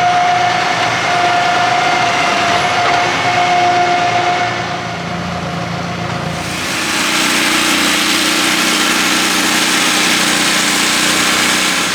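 Steady workshop machinery noise: a held whine through the first few seconds, then a louder, even rushing noise from about six and a half seconds in, over a low hum.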